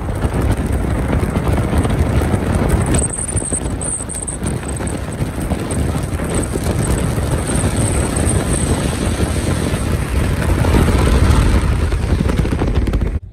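Steady rumble of a car driving on a snowy highway: tyre and wind noise, with wind buffeting the microphone, a little louder near the end.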